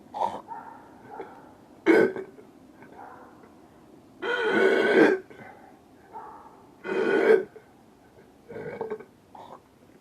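A man belching repeatedly: about five separate belches, the longest nearly a second long about four seconds in, the last ones weaker.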